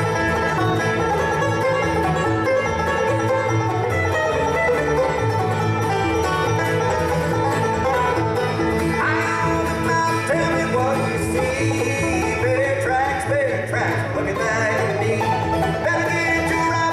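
Acoustic bluegrass band playing: banjo, fiddle, mandolin, acoustic guitar and upright bass together in a steady driving rhythm.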